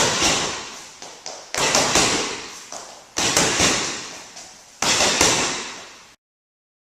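Three-punch jab-cross-hook combinations landing on a heavy bag: four quick bursts of two or three thumping strikes each, about a second and a half apart, each trailing off in a room echo. The sound cuts off abruptly about six seconds in.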